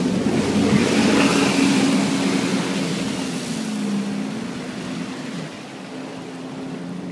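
Jet ski running past close by at speed, its engine and rushing water spray loudest about one to two seconds in, then fading as it pulls away. A steady low engine hum runs underneath.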